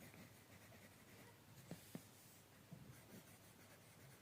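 Near silence with faint pen writing on paper: a few soft taps and scratches through the middle.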